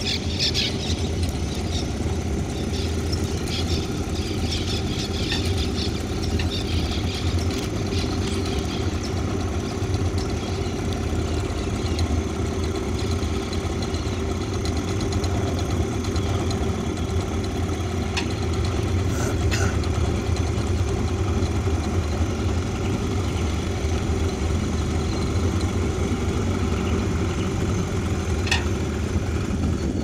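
Boat's outboard motor running steadily at an even pitch.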